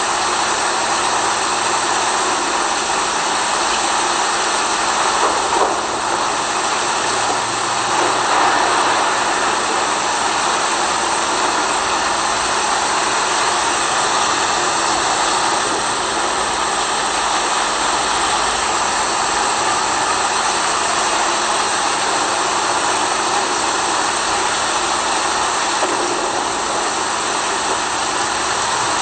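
Steady rain noise, a dense, even hiss with a faint low hum beneath it.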